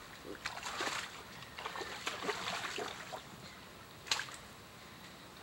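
Muddy creek water splashing and sloshing in irregular bursts as a tangle of brush and branches is dragged through it and pulled out, with one sharper splash near the end.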